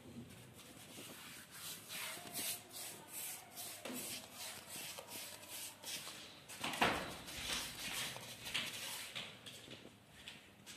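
Paintbrush rubbing back and forth along a steel channel as enamel paint is spread: a run of short scratchy strokes, with one louder knock about seven seconds in.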